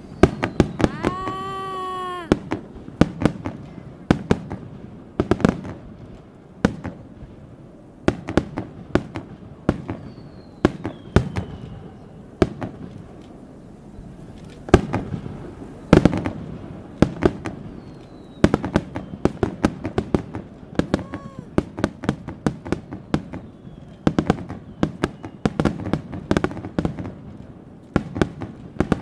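Fireworks display: aerial shells bursting one after another in irregular clusters of sharp bangs and crackles, with a few faint falling whistles.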